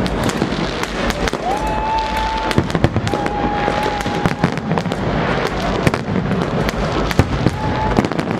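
New Year's Eve fireworks going off in quick succession: many sharp bangs and crackles over a constant low rumble. A few high whistling tones are held for about a second each, one near the start, one around the middle and one near the end.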